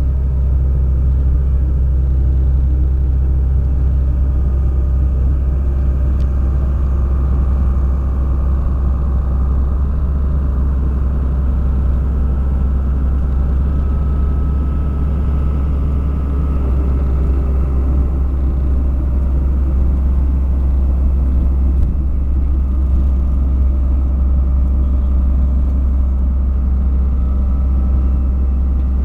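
Heavy diesel engine of road-paving machinery running steadily at a constant speed, a deep, even drone.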